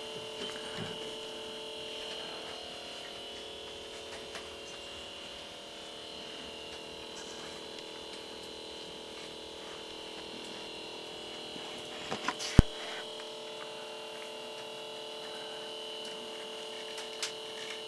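Steady electrical whine or hum made of several held tones. A single sharp click about twelve and a half seconds in, and a smaller tick near the end.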